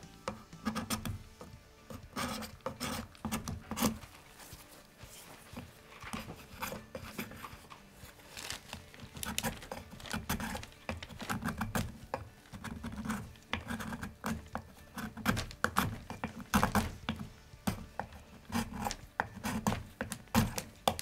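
Barrel channel scraping tool rasping thin shavings off the wooden rifle stock's inletting in many short, irregular strokes. Only the surface of the wood is being taken off, to give the bedding compound a good surface to adhere to.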